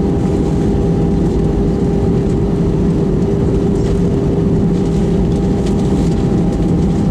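Airbus A319 cabin noise on the ground just after landing: a steady jet-engine drone over a low rumble, with an even hum tone running through it.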